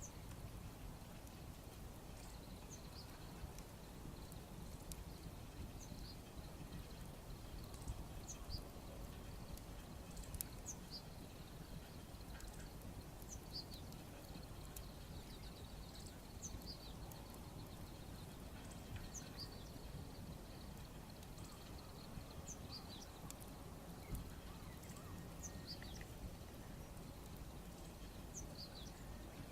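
Small birds calling with short high chirps every second or two, over a low steady rumble. A few faint sharp clicks stand out.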